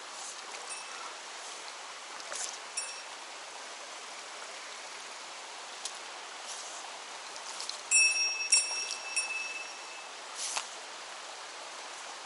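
Mountain stream running steadily. Around eight seconds in, a few short high rings jingle over it, like a small bell shaken, with scattered light ticks and knocks.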